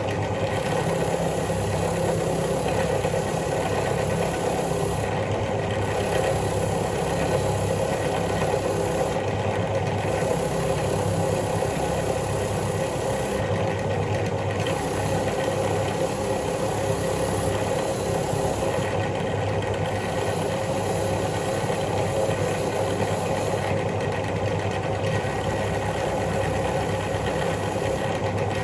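Electric wire wheel running steadily, with a rusty bolt held against it to scour the rust off the thread. The scratchy brushing drops out briefly every few seconds, while the motor's hum carries on underneath.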